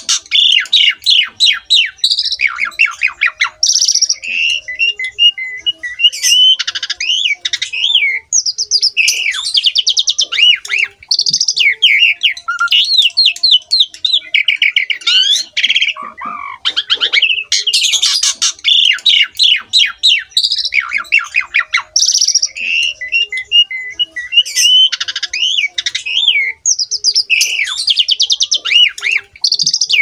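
Asian pied starling singing in full, non-stop song: a loud, rapid, ever-changing run of whistles, slurred notes and buzzy, grating rattles with barely a pause.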